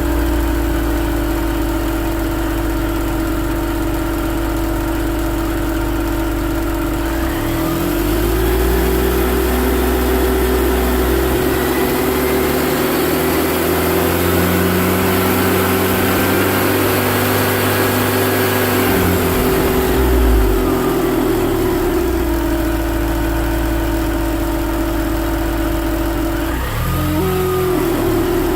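Supercharged four-cylinder engine of a 2002 Mini Cooper R53 running with a steady whirring drone ('wurr') that stays at one pitch while the revs rise from idle, hold, and fall back, and again through a short rev blip near the end. The whir is the sign of a collapsed oil tube between the rocker cover and the supercharger.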